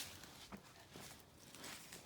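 Near silence with faint footsteps, one soft step about half a second in.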